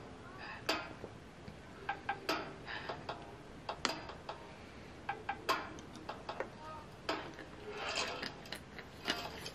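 Plastic water bottle crackling and clicking as it is handled and drunk from: a string of irregular light clicks and crinkles.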